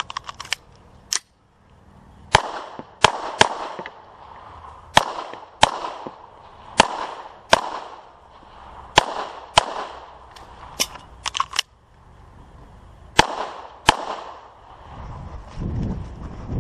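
Pistol shots fired during a USPSA stage, mostly in quick pairs about half a second apart, with pauses of a second or two between pairs as the shooter moves between targets. A low rumble comes up near the end.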